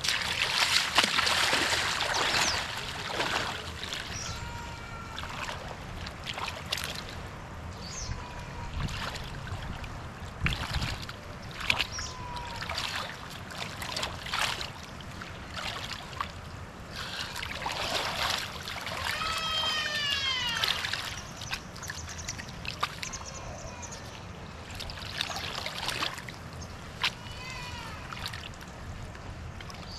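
Shallow lake water splashing and sloshing as a person wades in and works a chunk of concrete rubble loose from the bottom by hand, with many short splashes. A few brief high-pitched calls that rise and fall sound through it, clearest about two-thirds of the way in.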